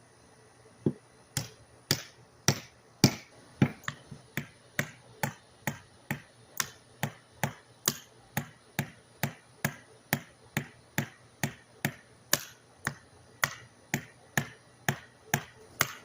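Hammer driving nails into small pieces of construction lumber, a steady run of sharp knocks about two and a half a second, starting about a second in.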